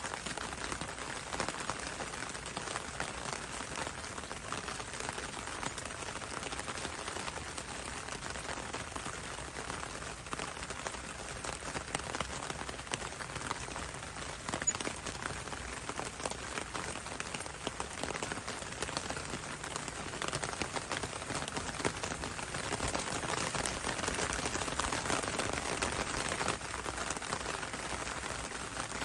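Steady rain, with many separate drops ticking as they fall on leaves; it grows a little heavier about three quarters of the way through.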